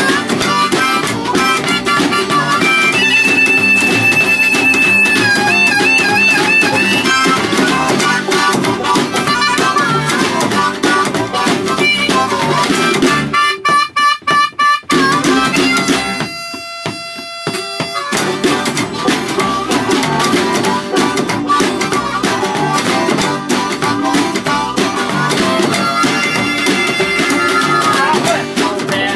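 Hillbilly string band playing an instrumental break, with harmonica lead over banjo, upright bass, guitar and drum. The harmonica holds long high notes that waver. Just past halfway the band drops out for about two seconds, leaving only a few held notes.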